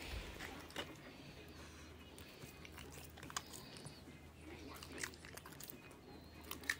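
Faint, scattered small clicks and snuffles from a white bulldog-type puppy having its chin scratched, with a few sharper clicks, the loudest near the end.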